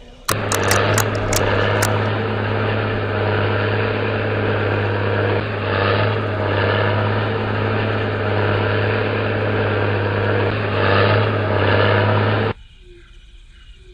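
A loud, steady engine running. It begins with a quick series of sharp clicks and cuts off abruptly near the end.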